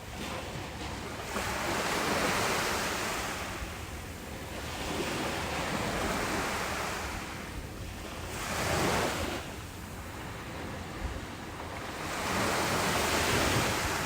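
Ocean waves breaking on a beach: surges of surf come about every three to four seconds over a steady wash of water.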